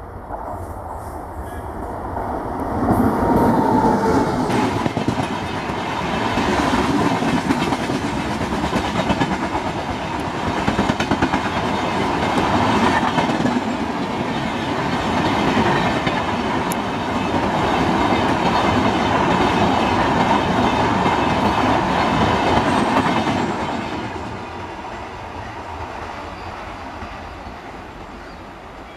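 Electric-hauled Indian Railways express train running past at speed: coaches rushing by with wheels clattering over the rail joints. It grows loud about three seconds in and fades after the last coaches go by near the end.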